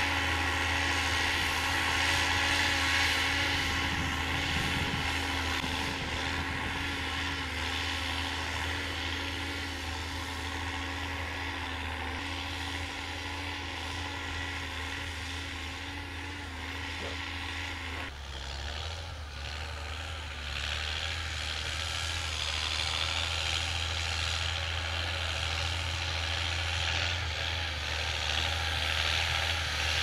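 John Deere tractor's diesel engine running steadily under load while pulling a disc harrow through soil. The engine tone shifts lower about eighteen seconds in.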